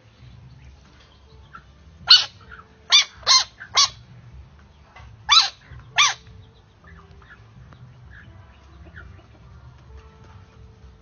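Dog yelping: six short, sharp cries, each rising then falling in pitch, in two bunches about two to four seconds apart. A large frog has its mouth clamped on the dog's paw.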